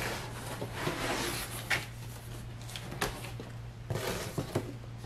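Cardboard box being opened and handled: the lid lifted, with scattered light knocks and rustling of cardboard and paper.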